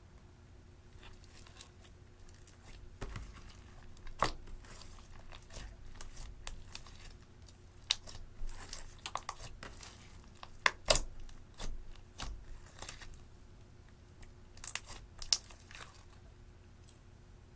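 Slime being squeezed and kneaded by hand, giving irregular sticky crackles and clicks with a few sharper pops.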